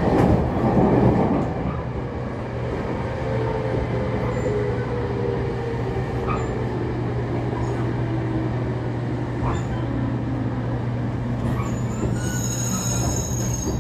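JR Kyushu 811-series electric train heard from inside its motor car as it slows into a station: a steady rumble of the wheels on the rails, loudest in the first couple of seconds, under the traction motor whine, which falls slowly in pitch as the train brakes. High-pitched squealing tones come in near the end.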